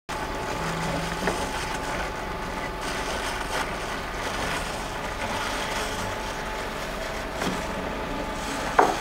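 Steady mechanical hum made up of several steady tones, with a few faint clicks and one short, sharp knock near the end.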